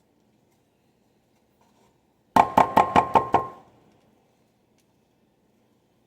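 A utensil knocked against the rim of a mixing bowl, about eight quick raps in a second, each ringing briefly: knocking sticky cream cheese off the utensil into the dip.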